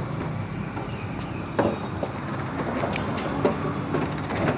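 Honda CD 70 motorcycle's single-cylinder four-stroke engine idling steadily at the exhaust joint whose silencer washer needs replacing, with a few sharp clicks and knocks over it.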